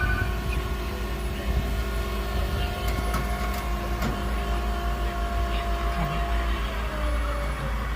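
Motor vehicle running: a steady low rumble, with a faint whine that drops slightly in pitch near the end.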